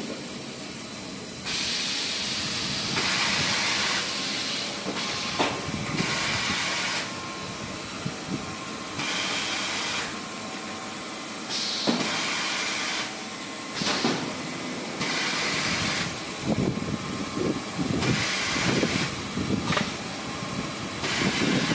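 Automatic maxi roll paper band saw cutting machine running, with spells of hissing a second or two long starting and stopping every few seconds. Short knocks and clatter come in over the last few seconds.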